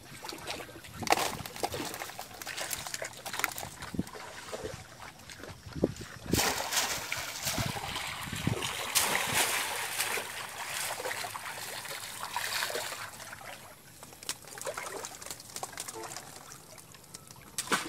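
Water splashing and dribbling as a bamboo box fish trap is lowered into shallow river water and a man wades around it setting it in place, with a few sharp knocks among the splashes.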